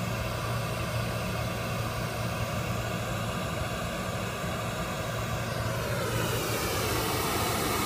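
Steady hiss of test noise from Smaart's signal generator playing through studio monitors during a phase-alignment measurement. About six seconds in, the hiss brightens and its tone shifts as one monitor is moved and the comb filtering between the two speakers changes.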